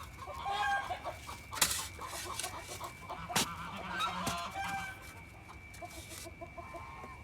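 Chickens clucking on and off, with two sharp knocks of a shovel digging into the soil, about a second and a half and three and a half seconds in.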